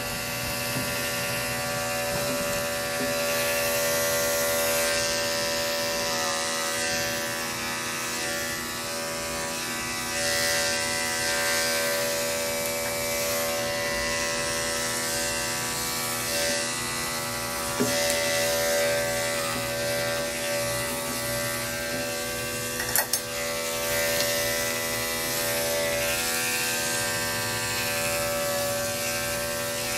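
Corded electric dog grooming clippers with a 1/4-inch snap-on comb guard, running steadily and cutting through a dog's coat. Two brief clicks break in, past halfway and again a few seconds later.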